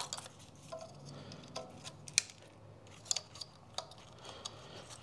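Scattered light plastic clicks and taps as a coil-pack electrical connector is worked onto an ignition coil, a connector whose retaining clip has come off.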